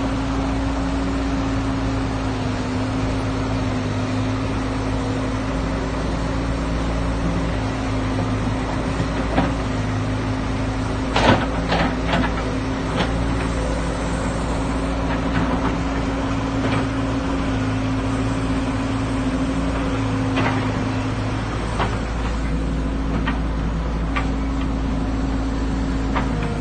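Hydraulic excavator's diesel engine running steadily, with a few sharp clanks, the loudest about eleven seconds in and several near the end.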